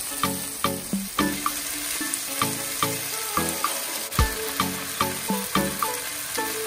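Beef, onion and fresh flat rice noodles sizzling in a hot nonstick pan, a steady frying hiss. Background music with evenly spaced plucked notes runs over it.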